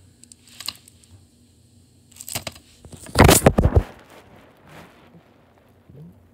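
Handling noise from a shrink-wrapped plastic DVD case: crinkling and light clicks, with a loud burst of rubbing and knocking about three seconds in.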